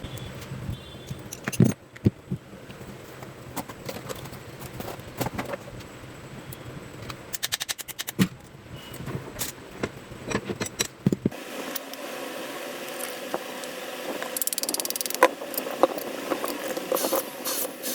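Metal parts of a small power tool clicking and knocking as they are handled and fitted. About two-thirds of the way through, a small electric motor starts humming steadily, with clicks and rattles over it.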